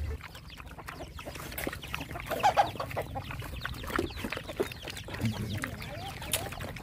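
A group of dogs and puppies eating wet food from a metal basin: dense wet lapping, chewing and clicks against the bowl, with a louder burst about halfway through and a few short animal calls near the end.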